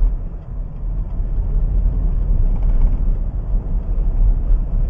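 Steady low rumble of a car driving on an asphalt road, engine and tyre noise heard from inside the cabin.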